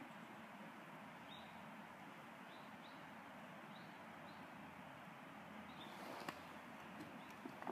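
Quiet outdoor background hiss by a pond, with a few faint, short high chirps spread through it and a couple of light clicks near the end.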